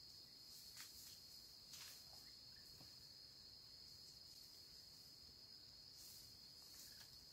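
Faint, steady high-pitched drone of insects in the forest, with a few brief soft rustles in the leaf litter.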